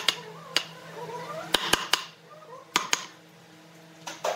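Wood chisel being struck repeatedly to chop out a mortise in a timber slab: sharp knocks, some single and some in quick pairs or threes, with short pauses between, and a fast run of strikes near the end.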